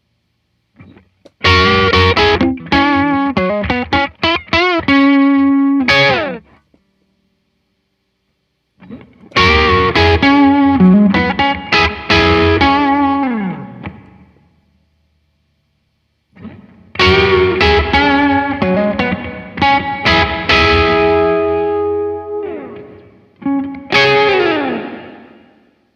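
Electric guitar played through a Blackstar JJN20 MkII amp in three short phrases, with bent and vibrato notes. Each phrase ends on notes left ringing out, followed by a few seconds of silence.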